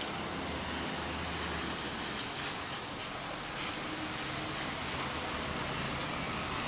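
Hybrid-electric city transit buses driving through on wet pavement: a steady low engine hum under the hiss of tyres on the wet road.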